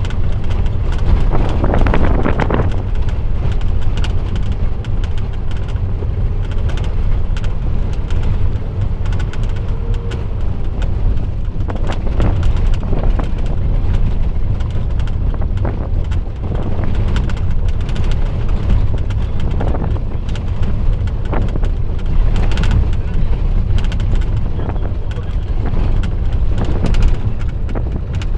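Inside a van's cabin on a rough, stony dirt road: a steady low rumble of engine and tyres, with frequent knocks and rattles as the body jolts over the stones.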